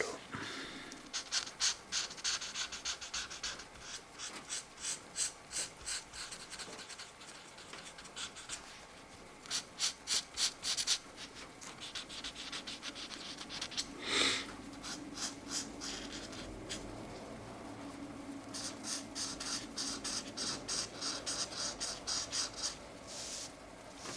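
Felt-tip markers scratching across colouring-book paper in quick back-and-forth strokes, coming in bunches with short pauses between them.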